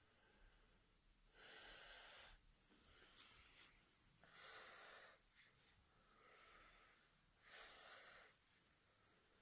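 A person breathing slowly and deeply, heard quietly: three long breaths about three seconds apart.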